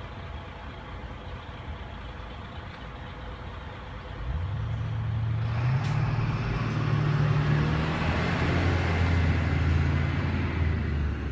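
A road vehicle passing close by: its engine and tyre noise rise out of a low street hum about four seconds in, stay loud, then begin to ease near the end.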